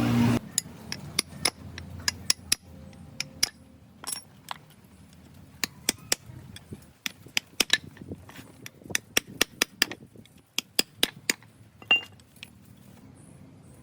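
A steady mechanical rumble stops abruptly just after the start. It is followed by a long irregular run of sharp metallic clicks and clinks, like small metal parts or tools knocking together, the loudest near the end.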